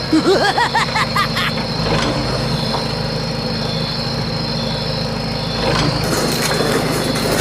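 A steady vehicle-engine drone. It opens with a few quick warbling pitch sweeps in the first second or so and grows a little louder and hissier about six seconds in.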